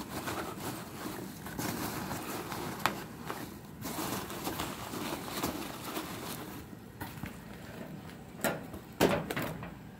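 Foam packing peanuts rustling and crunching as a hand digs through them in a cardboard shipping box, with scattered knocks and scrapes of cardboard; the sharpest knocks come about three seconds in and near the end.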